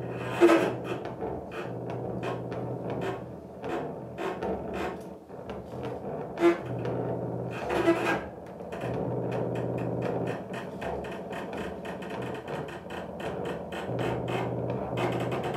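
Cello bowed with extended techniques in free improvisation: scratchy, rasping bow strokes, with sharp accented strikes about half a second in and again near six and a half and eight seconds, over a steady low hum. From about nine seconds the bowing settles into a denser, steadier scraping.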